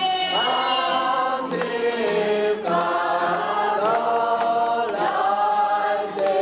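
A group of voices singing together in slow, long held notes with vibrato, with a soft low pulse underneath.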